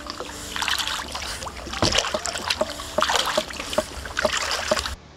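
Sea kayak paddled with a double-bladed paddle: a splash and drip of water from each blade as it dips and pulls through, about one stroke a second, with small knocks of the paddle.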